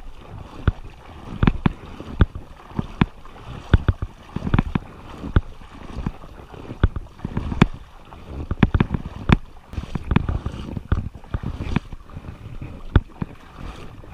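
Footsteps of a person walking on grass and soft ground, about two steps a second, close to the microphone, with rustling and knocks between them.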